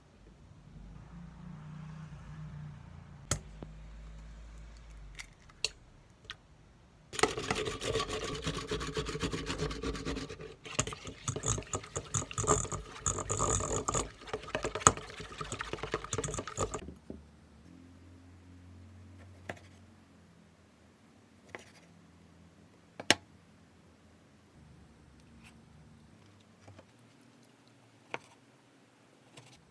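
Eggs being beaten with a utensil in a stainless steel bowl: rapid, loud metallic clattering for about ten seconds. Later, a knife slicing cherry tomatoes on a wooden cutting board, heard as a few separate sharp taps.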